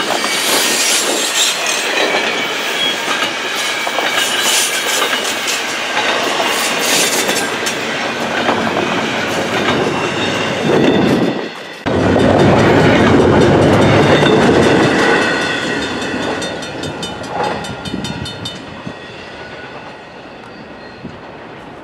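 Double-stack container cars of a long intermodal freight train rolling past close by, wheels clicking over the rail joints. About halfway in the sound cuts to the train heard going away down the line, its rumble fading steadily.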